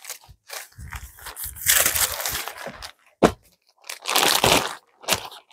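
Clear plastic packaging around folded bedsheets crinkling and rustling as it is handled, in irregular bursts, loudest about two seconds in and again around four seconds, with a sharp crackle in between.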